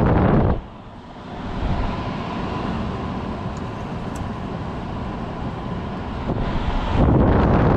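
The blower fan of a 2012 Frigidaire 5,000 BTU window air conditioner running on low with the compressor off, a steady airy whoosh with a faint hum. Just after the start and again near the end there is a much louder rush, like air blowing into the microphone.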